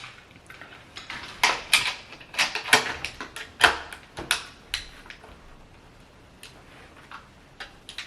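A quick series of sharp clicks and light knocks of hard objects being handled, about a dozen in a few seconds, then a few fainter ones near the end.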